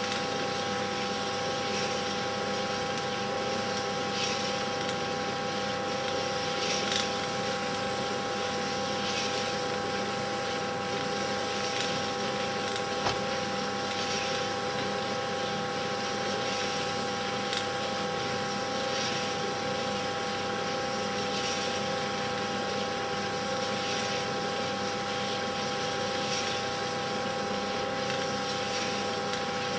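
Steady whirring hum and hiss from a running machine, holding several tones, with a few faint clicks.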